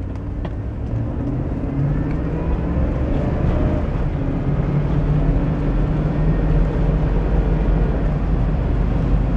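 A 5.3-litre V8 pickup's engine and road noise heard from inside the cab as the truck pulls away and speeds up, growing gradually louder. A faint whine from the engine compartment sits under it, which the owner suspects comes from the power steering pump running low on fluid.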